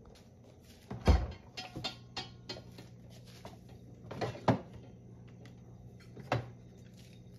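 Refrigerator door pulled open with a soft thud about a second in, then food containers and a lidded pot handled on the fridge shelves: a few knocks, rattles and clinks, the loudest near the middle and one more near the end. A steady low hum runs underneath.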